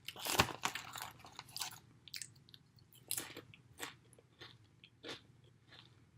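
Crunching and chewing on crisp snack chips held close to the microphone, irregular sharp crackles with the loudest bite right at the start and further crunches about three and five seconds in.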